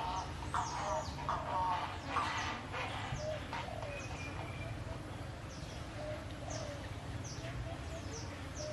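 Animals calling: a few harsher calls in the first three seconds, then many short falling chirps, over a steady low hum.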